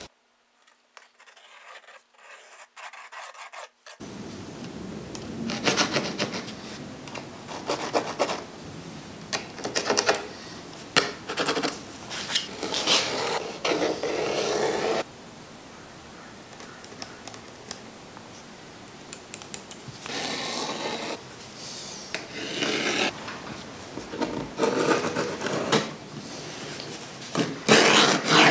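Pencil and compass scratching and rubbing across a plywood sheet while a template is marked out and arcs are scribed, in a long series of strokes, some short and some held for a second or more, after a few seconds of near quiet at the start.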